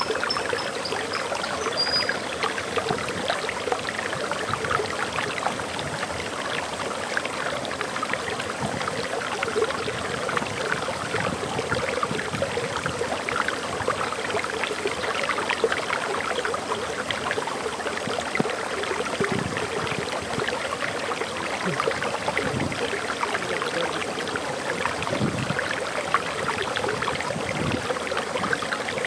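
Water flowing and splashing over a small waterfall: a steady, even rush with constant fine splashing.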